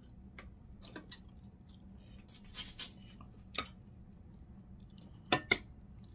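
Metal spoon and fork clinking against plates during a meal, with some chewing. Scattered sharp clinks, the two loudest close together about five seconds in.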